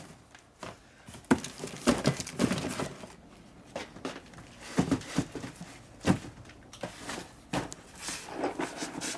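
Heavy cardboard boxes of aircraft-engine cylinder parts being shifted and set down on a rubber floor mat: about half a dozen scattered dull thumps with cardboard rustling and a few footsteps.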